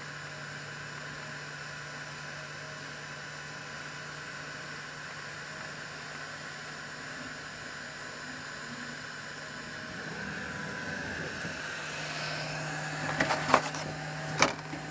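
Creality diode laser engraver running as it cuts a test hole, a steady hum with a faint hiss that shifts slightly about ten seconds in. A few sharp clicks and knocks come near the end.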